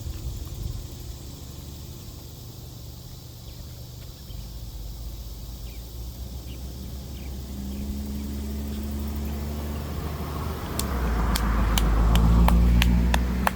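A motor vehicle drawing near and passing, its noise swelling to a peak about twelve seconds in over a steady low hum. A quick run of sharp clicks sounds near the end.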